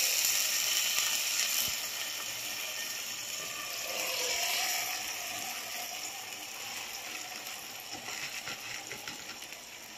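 Onion-and-water mixture bubbling and sizzling in a pan over high heat while dry rice grains are poured in, a steady hiss with a fine patter of grains. The hiss slowly fades.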